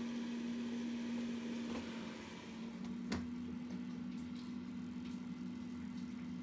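Countertop air fryer running: a steady fan hum, with a sharp click about three seconds in.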